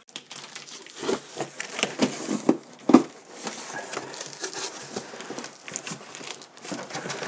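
Plastic security tape peeling and ripping off a cardboard box, then the cardboard flaps being pulled open over a sheet of packing foam. Irregular crackling and tearing, with one sharper snap about three seconds in.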